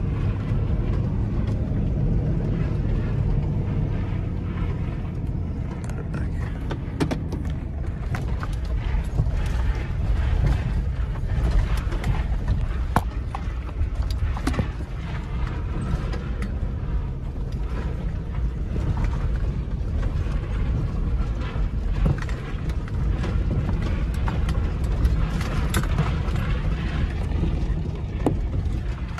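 Four-wheel-drive Toyota Tundra pickup creeping down a rough gravel track with the engine braking: a steady low engine and road rumble, broken by frequent short knocks and rattles from the body and suspension over the rocks.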